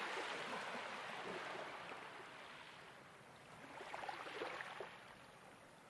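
Soft ocean waves washing on a shore. One wave fades out over the first few seconds, then another swells about four seconds in and ebbs away.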